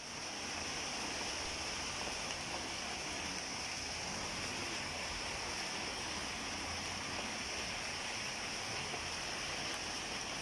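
Steady rain falling, an even hiss with no single drops or other events standing out.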